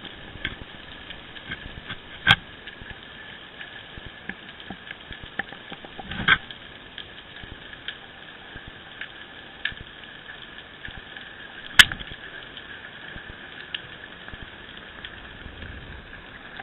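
Underwater sound picked up through a small camera's waterproof housing towed with a squid jig: a steady crackle of small clicks, with three sharper knocks about two, six and twelve seconds in.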